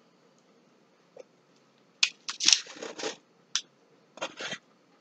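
Butter knife cutting through salt dough on a pan: a run of short, sharp scrapes from about two seconds in, then one more and a final pair.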